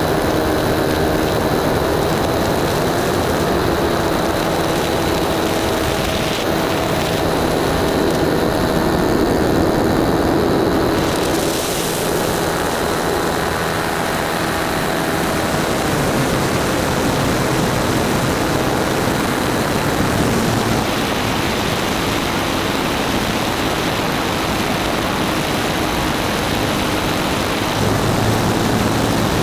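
Nitro glow engine of a .120-size model sport plane running in flight, heard close up from a camera mounted right beside it, with its propeller. Its pitch shifts as it flies, settling lower about halfway through and picking up again near the end.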